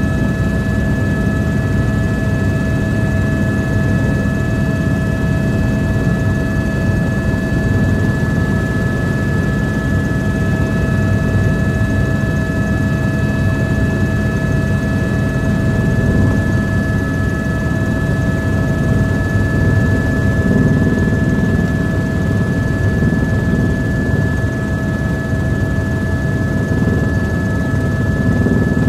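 Helicopter running in steady flight, heard from inside the cabin: a constant low drone of rotor and engine with a few steady high tones over it.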